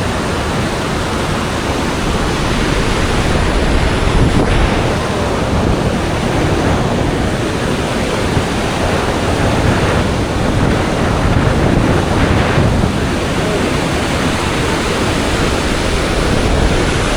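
Iguazú Falls: the steady rush of falling water, a dense, even noise with no breaks.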